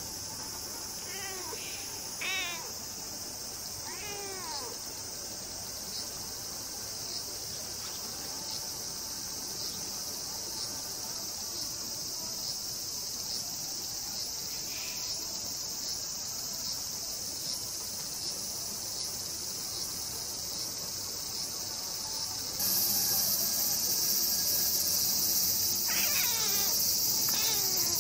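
A stray cat meowing softly and mellowly, a few short calls that fall in pitch near the start and again near the end. A steady drone of cicadas runs underneath and grows louder about two-thirds of the way through.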